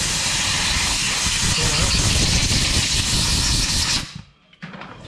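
A pressurised jet hissing steadily while the engine's cylinder head is cleaned. It cuts off sharply about four seconds in.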